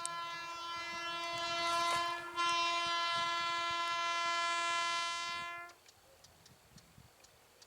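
Indian train's horn sounding one long, steady blast with a brief break about two and a half seconds in, stopping abruptly near six seconds.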